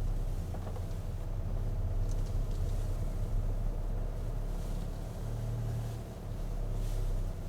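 A vehicle's steady low rumble, as of a car driving.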